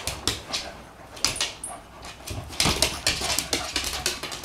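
Two dogs fighting: an irregular run of short snarls, yips and scuffling, busiest from about two and a half seconds in.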